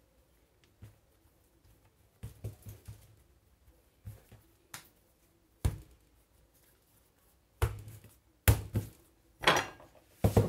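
Hands working brioche dough on a kitchen worktop: scattered soft taps and knocks of hands and dough on the counter, growing more frequent and louder in the second half.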